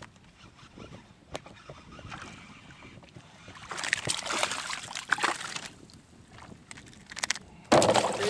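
A hooked fish thrashing and splashing at the water's surface beside a kayak, in a stretch about four seconds in and again, louder, near the end. Small clicks and knocks come from the rod and reel being handled.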